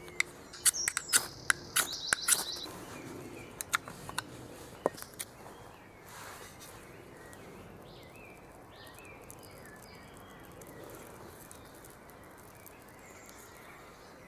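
Dry birch bark and kindling crackling and snapping as it is handled in the first few seconds, then small birds chirping in short calls.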